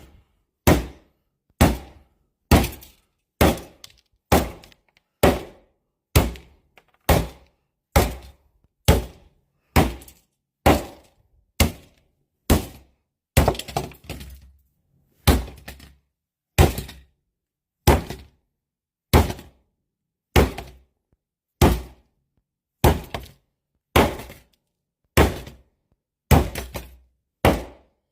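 A hammer striking a TV's circuit board over and over, a blow a little more than once a second at an even pace, each a sharp hit that dies away quickly.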